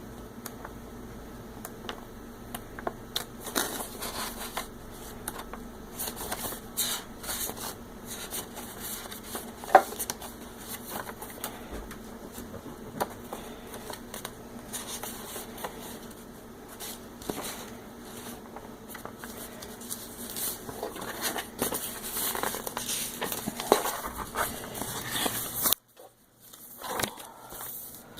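Paper rustling and crinkling as a folded booklet is handled and leafed through, with scattered small clicks and taps.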